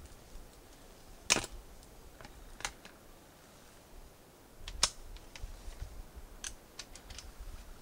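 Sharp mechanical clicks and clacks of a bolt-action rifle being worked after a shot, as the bolt is lifted and the spent case is pulled out: two loud clacks about a second and a half in and again near five seconds, a softer one between them, and a run of small clicks after.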